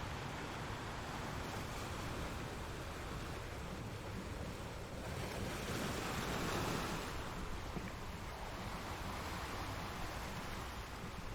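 Ocean waves washing in, a steady rush of surf, with one wave swelling louder and breaking about halfway through.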